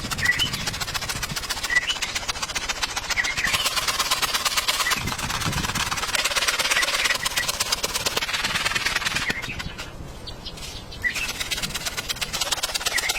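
Heavy rain falling steadily in a dense patter, easing for about a second and a half near the ten-second mark before coming back, with short high chirps now and then.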